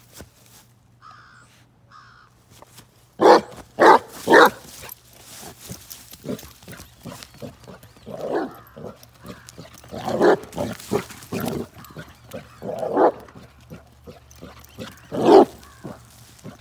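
Basset hound puppy barking in play: three quick barks about three seconds in, then more scattered barks, with a loud one near the end.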